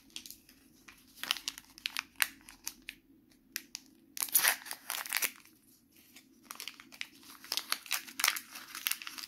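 Plastic toy packet crinkling and crackling as it is handled and torn open by hand, in several clusters with the loudest about four seconds in.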